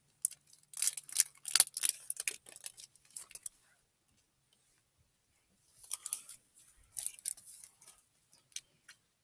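Foil wrapper of a Pokémon booster pack crinkling and tearing as it is opened, in two spells of sharp crackles with a quiet pause between.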